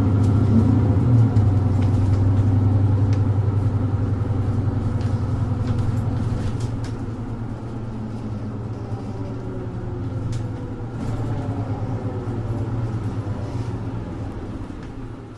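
Mercedes-Benz Citaro 2G city bus with an OM470LA diesel engine and ZF EcoLife automatic gearbox, heard from on board as a steady low drone. It slowly grows quieter and dies away near the end.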